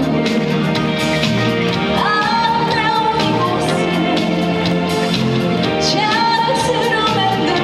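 Trot song performed live: a woman singing over an amplified backing track, a sung phrase starting about two seconds in and another near the six-second mark.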